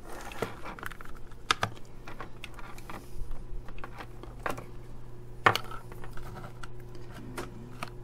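Scattered small clicks and rattles of hands handling a plastic USB cable tester and USB cable plugs, with one sharper click about five and a half seconds in.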